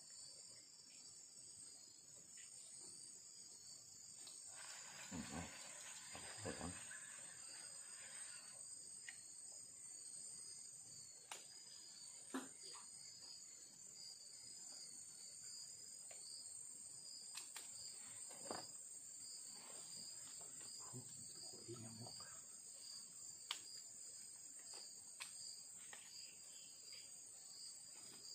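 Steady, high-pitched chorus of insects in the forest, with a few sharp clicks and a short rustle about five seconds in from handling fishing tackle.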